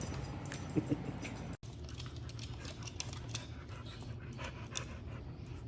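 Dog panting and moving about, with scattered light clicks over a low steady hum.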